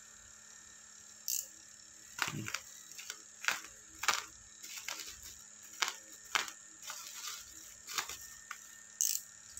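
Plastic bubble wrap around a packaged phone LCD screen crackling and clicking as it is handled and slit open with a pointed tool. There are about a dozen sharp, irregular clicks, with a short high rustle early on and another near the end.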